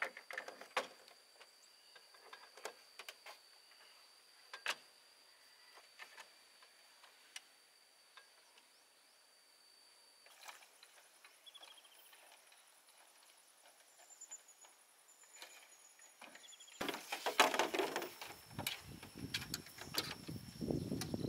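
Bamboo poles knocking and clattering against each other and the bamboo deck as they are handled, at first as scattered single knocks, with a steady high insect note behind that stops about halfway. Near the end the clattering and rustling of bamboo becomes much closer, louder and denser.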